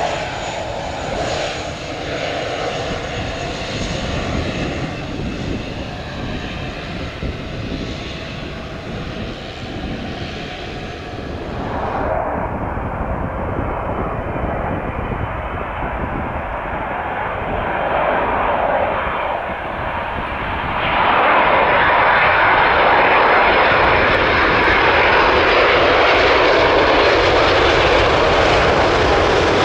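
A Pilatus PC-12's single Pratt & Whitney PT6 turboprop running with a high turbine whine as the aircraft taxis. About twelve seconds in, this gives way to a Boeing 777-200's GE90 jet engines on a go-around. Their sound grows suddenly louder about two-thirds of the way through as they spool up to go-around thrust, and stays loud.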